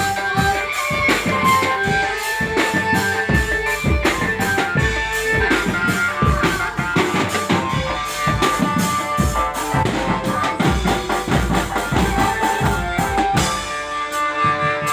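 Dramben drum band playing: drums beat a quick, steady rhythm under a melody.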